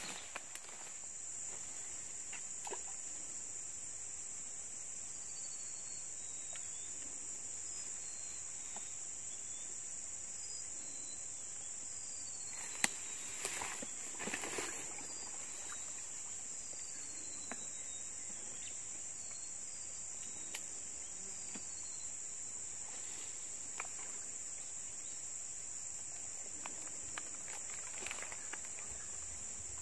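Steady high-pitched drone of an insect chorus. A few short falling whistles come through in the middle, with some light knocks and rustles about halfway through.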